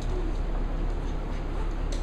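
Cavalier King Charles spaniel puppies playing on a wooden floor: one puppy gives a brief low vocal sound just after the start, and a sharp click comes near the end, over a steady low hum.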